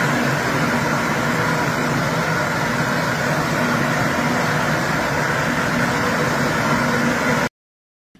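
Airblast orchard sprayer running steadily, its large fan blowing spray mist, a loud even rush with a low hum underneath. It cuts off suddenly near the end.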